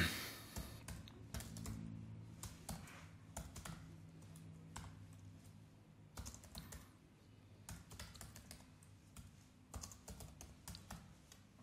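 Typing on a computer keyboard: faint, irregular keystroke clicks coming in short runs with brief pauses between them.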